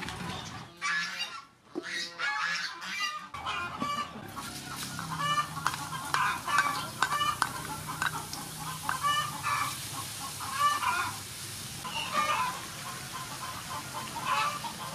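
Chickens clucking repeatedly, over the sizzle of chopped garlic frying in oil in a wok.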